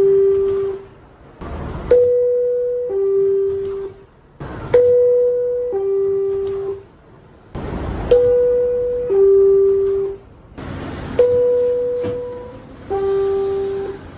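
R62A subway car door chime: a two-tone ding-dong, a higher tone stepping down to a lower one, sounding again and again about every three seconds. A short burst of noise comes just before each chime.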